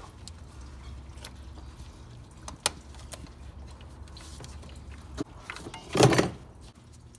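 Slip-joint pliers squeezing a self-tensioning spring hose clamp and sliding it along a rubber coolant hose: scattered small metal clicks, a sharper click a little under three seconds in, and a louder thump and rustle about six seconds in.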